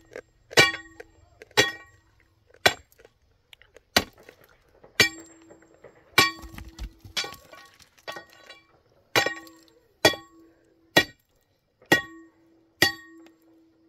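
Hand hammer blows on steel, about a dozen at a steady one a second, each leaving a short metallic ring: stone being broken by hand to cut a road.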